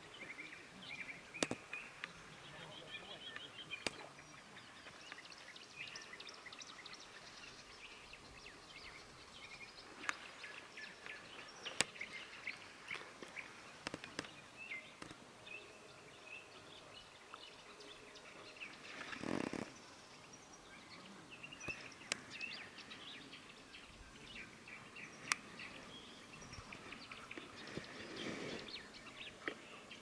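Songbirds singing around a reedy pond: many overlapping short chirps and trills, fairly faint. A few sharp clicks are scattered through it, and a brief rush of noise comes about two-thirds of the way in.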